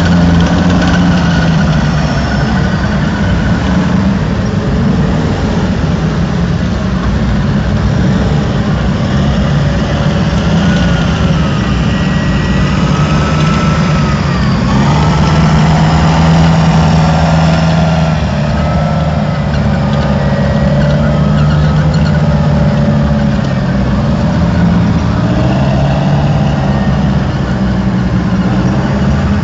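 Tracked military vehicles, self-propelled howitzers and tracked carriers, driving past with a steady heavy engine rumble, and a high whine over it that rises and falls.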